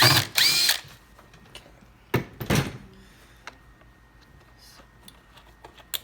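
Power drill backing screws out, running in two short bursts: one right at the start and one about two seconds in. Quiet handling clicks follow.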